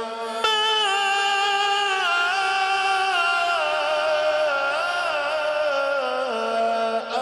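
A male qari reciting the Quran in a melodic style into a microphone: one long, ornamented held phrase that starts sharply about half a second in and slides slowly down in pitch, with a short break near the end.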